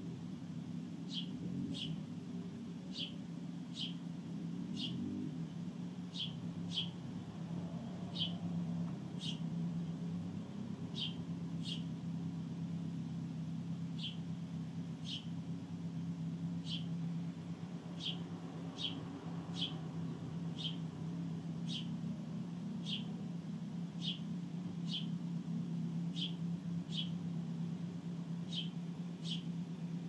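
House sparrow chirping: short, falling cheeps repeated about once a second, often in quick pairs. Under them runs a steady low hum, louder than the chirps.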